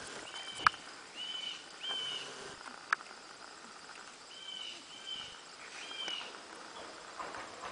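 A miniature horse walking through long grass under a rider, with short high squeaky notes coming in twos and threes and two sharp clicks, the first about a second in.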